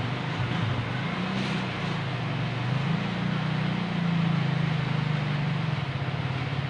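A small engine running, its pitch wavering up and down.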